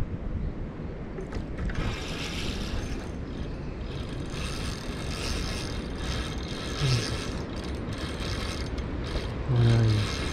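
Spinning reel being cranked to retrieve line, its gears whirring in several spells of one to three seconds each.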